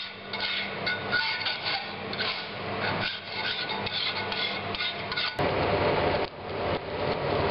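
Metal being filed by hand: irregular rasping strokes. About five and a half seconds in, the sound cuts abruptly to a denser, steadier noise.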